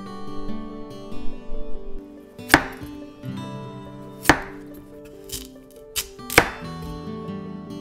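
Kitchen knife cutting through potato and daikon radish, landing on a cutting board with five sharp strikes at uneven intervals, over gentle background music.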